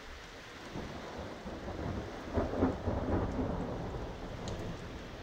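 Thunder rumbling over steady heavy rain: the rumble swells about a second in, is loudest in the middle and slowly dies away.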